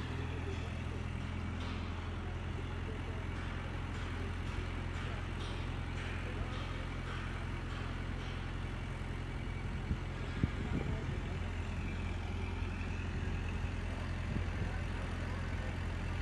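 Hydra mobile crane's diesel engine running steadily, with two sharp knocks close together about ten seconds in.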